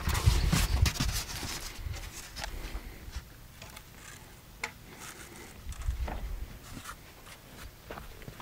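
Footsteps and handling noise on a concrete slab: a burst of rustling and knocks at the start, then scattered clicks and light knocks.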